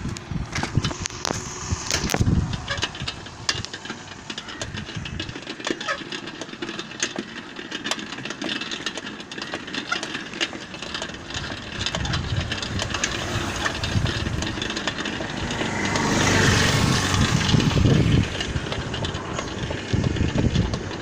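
A motorbike riding along a road, its engine running under steady road and wind noise, with many short clicks throughout. The noise swells for a couple of seconds about three-quarters of the way through.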